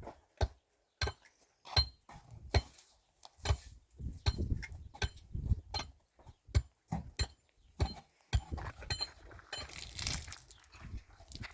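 Irregular clinks and knocks of hard objects being handled, a few with a short ringing tone, with a rustling noise near the end.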